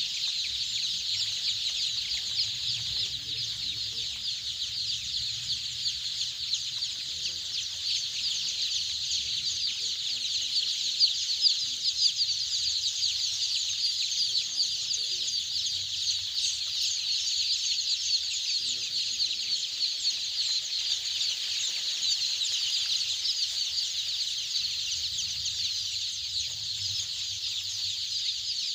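A large flock of five-day-old Golden Misri chicks peeping, a dense unbroken chorus of high-pitched cheeps.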